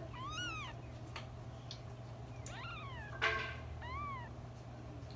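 Newborn kittens mewing: three short, high calls that rise and fall, near the start, about two and a half seconds in and about four seconds in. A sharp click about three seconds in is the loudest sound.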